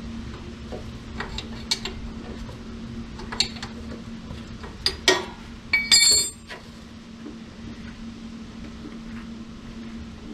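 Sharp metallic clicks and clinks of a wrench on the starter motor's lower hex nut, then a metal wrench set down on a concrete floor with a brief ringing clank about six seconds in. A steady low hum runs underneath.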